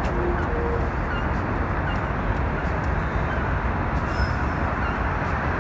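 Steady outdoor noise: a constant low rumble with hiss up to middle pitches, like wind on the microphone mixed with road traffic, with a few faint short chirps.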